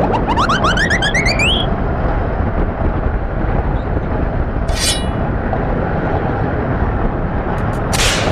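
Steel Vengeance roller coaster ride noise: a steady, loud rumble with wind on the microphone. Over it, a cartoon sound effect rises in pitch through the first second and a half, a brief cartoon sound effect comes about five seconds in, and another short one comes near the end.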